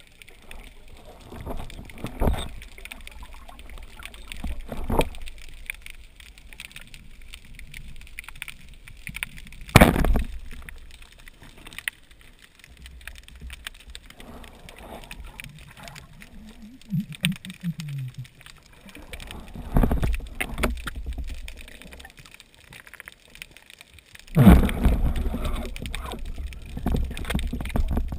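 Muffled underwater sound picked up through a GoPro housing: water gurgling and bubbling, broken by several sharp knocks. The loudest knock comes about ten seconds in, and a louder, rougher stretch follows near the end.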